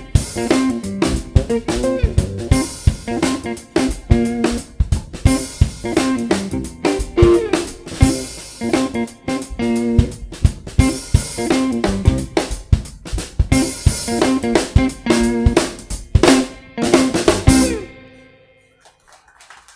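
Live instrumental funk from an electric guitar, electric bass and drum kit playing a syncopated groove with snare and rimshot hits. The band stops together on a final hit about two seconds before the end.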